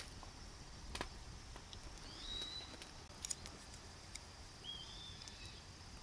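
Quiet outdoor ambience with a faint steady high insect drone. Wooden chopsticks on a steel plate give a few faint clicks, and two short whistle-like calls rise and then hold, one near the middle and one near the end.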